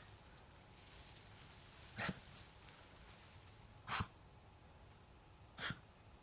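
Bichon–cocker spaniel cross dog giving three short, breathy snorts about two seconds apart.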